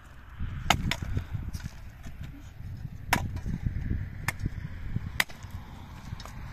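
Dry branches being chopped for firewood with a long-handled, hammer-headed tool: about five sharp, cracking blows at uneven intervals, two close together near the start.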